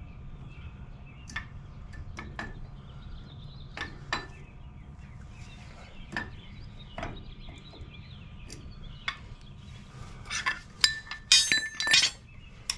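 Metal parts clinking and tapping at a semi-trailer wheel hub as the lock is fitted to the adjusted spindle nut: scattered single clicks, then a quick run of ringing metallic clinks near the end.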